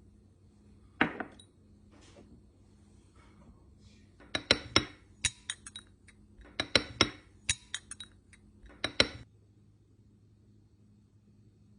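Kitchenware clinking against glass: a string of sharp clinks, one alone about a second in and then several quick clusters, stopping a little after nine seconds.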